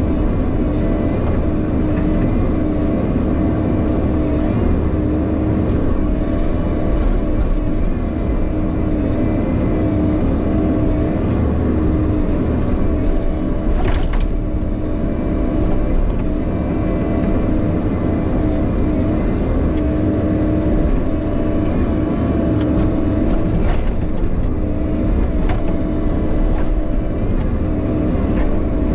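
Bobcat E50 compact excavator's diesel engine running steadily while it digs. A sharp knock comes about halfway through and a few fainter knocks come near the end.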